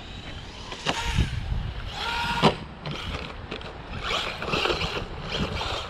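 Bezgar HM124 1/12-scale brushless RC car driving: a faint electric-motor whine and its tires scrabbling over the ground in bursts, with sharp knocks about a second in and again about two and a half seconds in.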